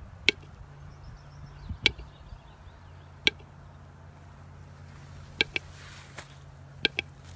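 Scattered sharp clicks or taps, about eight in all and irregularly spaced, over a steady low hum.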